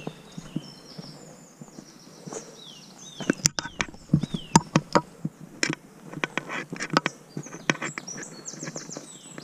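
Footsteps of a walker on a muddy woodland path, sparse at first, then quicker and louder from about three seconds in. Small songbirds sing over them: a repeated falling whistled note in the first half and a fast high trill near the end.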